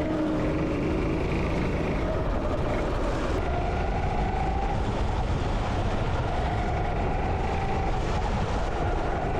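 Go-kart engine running at speed during a wet lap, its pitch rising and falling slowly over a steady rushing noise.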